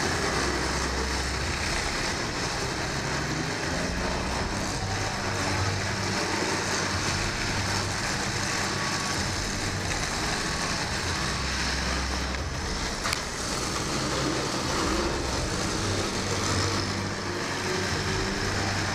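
Engines of many full-size demolition derby cars running together as a steady low rumble that swells and fades, with a single sharp knock a little over two-thirds through.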